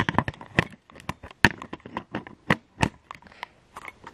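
Handling noise: a quick, irregular run of sharp clicks and knocks, about a dozen in four seconds, as the camera is repositioned and handled.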